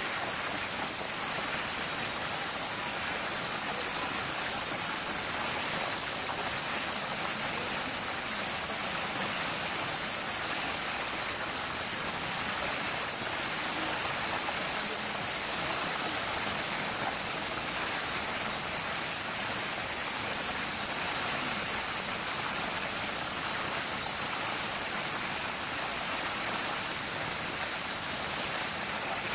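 Dense, steady chorus of summer cicadas: a high, shrill hiss that swells and eases a little every several seconds.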